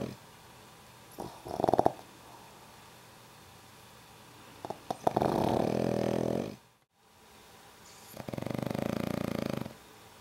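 Sleeping pugs snoring. A short snort comes about a second and a half in, then two long fluttering snores about five and eight seconds in.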